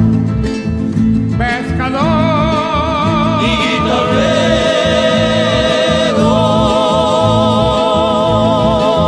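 Music: an instrumental stretch of a folk song, with a steady rhythmic bass and guitar accompaniment under a melody of long held notes sung or played with strong vibrato.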